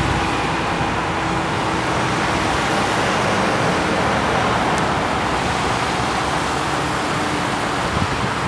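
Steady traffic noise from cars driving slowly, their tyres on a snow- and ice-covered road.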